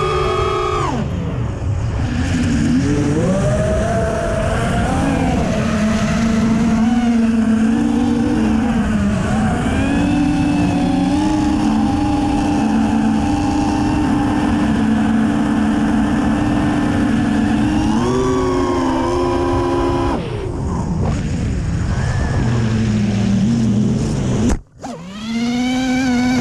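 FPV quadcopter's brushless motors whining, the pitch rising and falling with the throttle and holding steady for long stretches. About two seconds before the end the sound cuts out almost completely, then the whine comes back, sweeping up in pitch.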